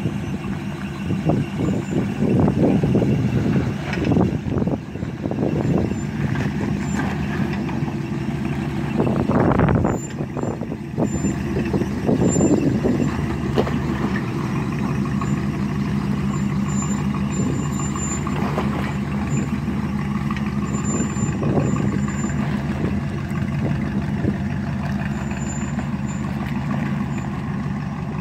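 A 1987 Chevrolet Silverado pickup's engine running at low revs while the truck crawls over rocky ground, with a few surges of throttle that swell and fall back: loudest a few seconds in and again around ten and twelve seconds in, then a steadier run as it drives off.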